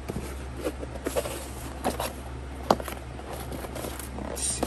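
A small cardboard box being handled: lifted and turned over in the hands, with a few light taps and scrapes of cardboard over a steady low hum.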